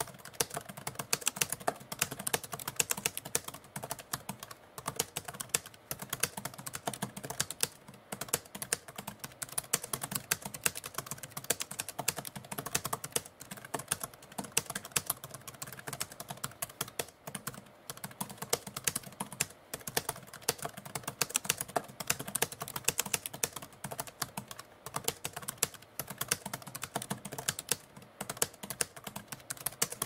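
Typewriter being typed on steadily: a fast, dense run of keystrokes, with short pauses every few seconds.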